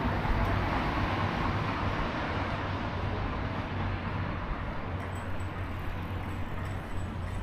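Street traffic noise: a vehicle's tyre and engine sound easing away over the first few seconds, over a steady low hum.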